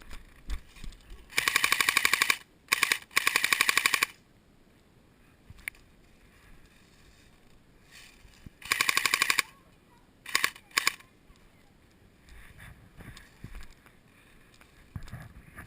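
Airsoft gun firing on full auto in rapid bursts: a long burst of about a second, two more close together, another about eight seconds in, and two short bursts around ten seconds.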